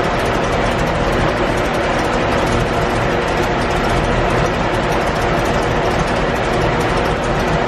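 Portable pancake air compressor running steadily.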